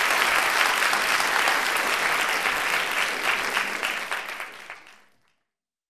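Large audience applauding in an auditorium, dense steady clapping that fades out about five seconds in.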